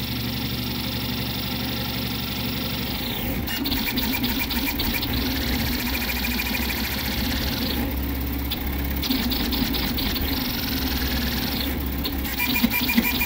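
Vz235 CoreXY 3D printer's XY stepper motors whining and buzzing as the print head zigzags across the bed at up to 1500 mm/s with 50,000 acceleration. The whine rises and falls with the moves, and from about three and a half seconds in there are stretches of rapid ticking as the head reverses direction.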